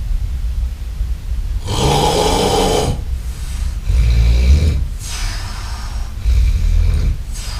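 A man snoring heavily: a run of loud, rasping snores and breaths, one every second or so, over a deep rumble.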